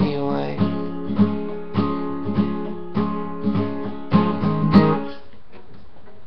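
Acoustic guitar strummed in chords, a strum about every half second, closing out the song; the playing stops about five seconds in, leaving faint room noise.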